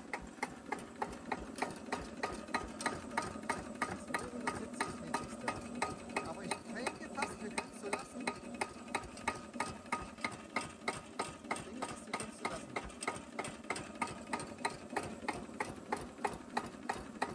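Cunewalder single-cylinder hopper-cooled diesel engine running slowly at a turned-down idle, beating out an even rhythm of about three knocks a second.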